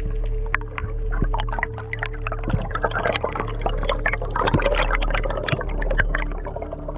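Underwater recording of air bubbles streaming and popping past the microphone, a dense crackling bubbling that builds about two and a half seconds in, over a steady low hum.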